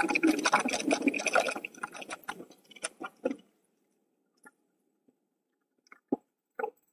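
Bicycle tyres crunching over a gravel trail, a dense crackle of small clicks that thins out and stops about three seconds in. After that there are only a couple of faint knocks near the end.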